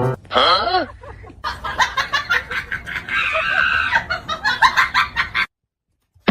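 Chicken clucking and squawking: a short gliding squawk, then a rapid run of sharp clucks for about four seconds that cuts off abruptly.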